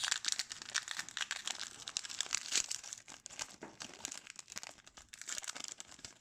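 Foil wrapper of a hockey card pack being torn open and crinkled in the hands: a dense run of crackles that thins out toward the end.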